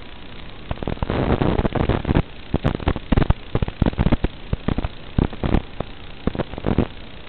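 Hiss and irregular crackling static from an analog FPV video receiver's audio channel, with many sharp pops over several seconds as the 5.8 GHz video signal breaks up.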